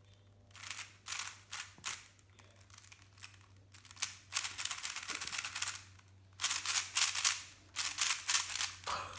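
Plastic 3x3 speedcube being turned rapidly by hand, with runs of quick clicking and clacking from the layers snapping past each other. The cube is being tried out for its turning and corner cutting.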